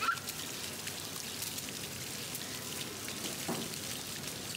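Splash-pad water jets spraying up and pattering back onto wet playground ground: a steady, even hiss full of fine splatter ticks, like rain.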